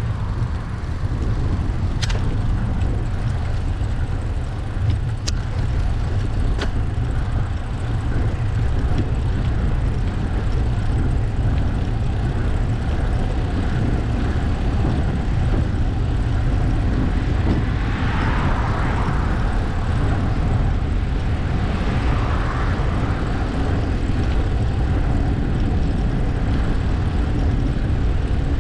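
Steady low wind rumble and road noise on a GoPro Hero9's microphone while riding a bicycle. A few sharp clicks come in the first seven seconds, and two brief swells of hiss come about two-thirds of the way through.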